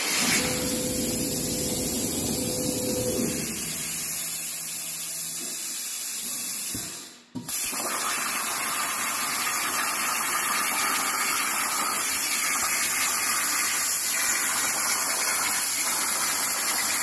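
CNC plasma cutter's torch hissing steadily as it cuts metal plate. About seven seconds in the sound drops out sharply for a moment, then the steady hiss resumes.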